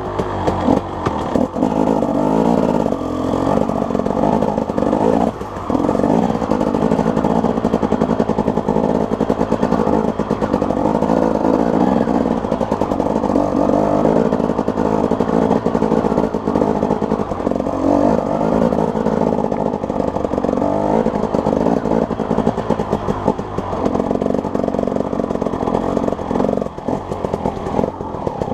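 A small off-road vehicle engine running continuously while being ridden, its pitch shifting a little with the throttle and dipping briefly about five seconds in and again near the end.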